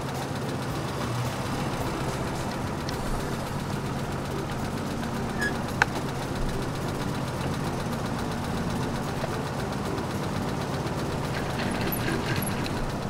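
A motor running steadily, with one sharp click about six seconds in.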